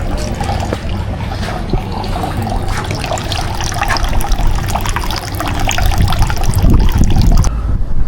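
Water falling continuously into a Japanese temple's hand-washing fountain (chozuya), used to rinse the hands before prayer. A low rumble runs underneath and grows heavier a couple of seconds before the end.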